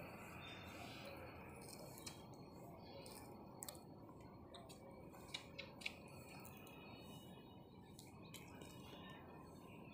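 Near silence: faint background hiss with a few short soft clicks around the middle.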